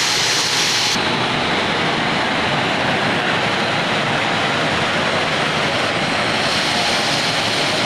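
Spring water gushing from the ground and rushing over limestone rocks in a shallow channel: a loud, steady rush close to the microphone. The highest hiss thins out about a second in.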